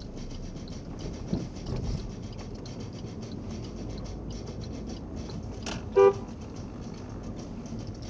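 A car horn gives one short toot about six seconds in, over the steady low engine and tyre noise of a car rolling slowly.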